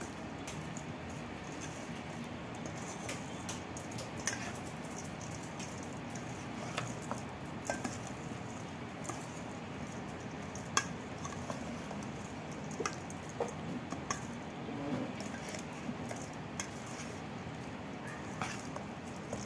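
Metal spoon tossing coated zucchini sticks in a stainless steel bowl: soft wet squishing and scattered light clicks and scrapes of metal on the bowl, over a steady background hiss.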